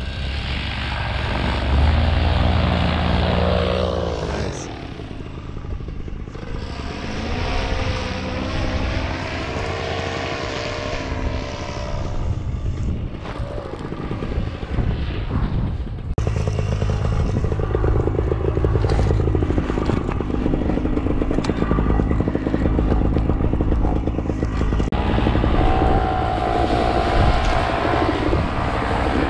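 Paramotor's two-stroke engine and propeller running, its pitch rising and falling several times with the throttle, then holding steadier and louder from about halfway through.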